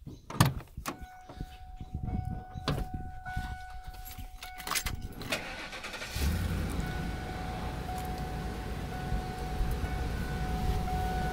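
Ford E150 van's door and cab being handled with clicks and knocks, then the engine cranks and starts about six seconds in and settles into a steady idle.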